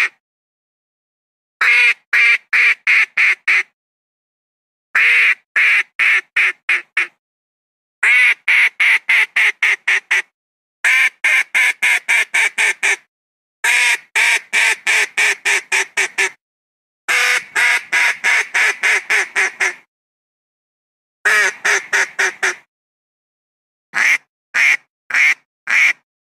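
Philippine duck (papa) quacking: runs of quick, loud quacks at about three to four a second, each run lasting two to three seconds and broken off by short gaps of silence. It is a duck call played as a hunting lure to bring wild ducks down.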